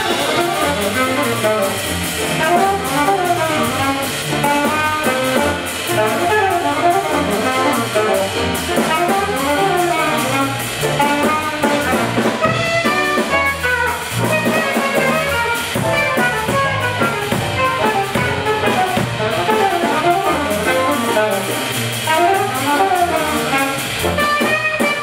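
Live jazz: a saxophone playing fast, running lines over electric bass and drum kit.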